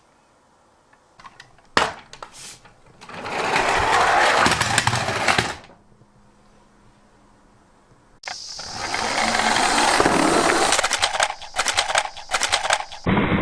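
Small toy vehicle's gears and wheels whirring in two bursts of a few seconds each, with plastic clicks and knocks around them.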